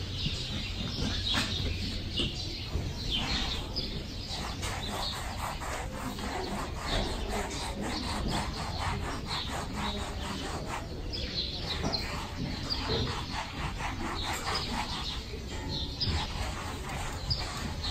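Curry comb scrubbing over a horse's coat in steady strokes, with small birds chirping on and off.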